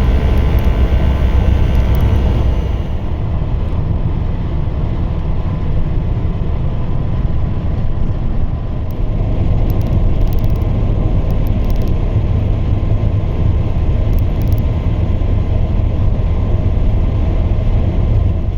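Campervan driving on the road: a steady, loud rumble of engine and road noise.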